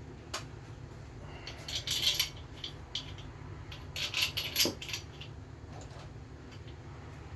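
Light metallic clinks and taps of steel bolts and parts being handled while fitting the main bearing cap bolts on a GM 4.3 V6 block, coming in irregular clusters about two and four to five seconds in, over a steady low hum.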